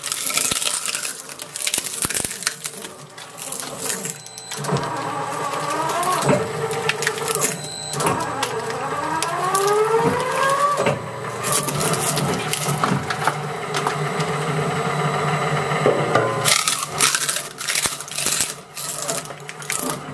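Twin-shaft shredder's steel blades crunching up a wooden table tennis paddle with rubber faces: cracking and splintering of the wood. Through the middle stretch there is a steady grinding with whining tones that rise and fall in pitch as the blades bite. Sharp cracks return near the end as the last pieces go through.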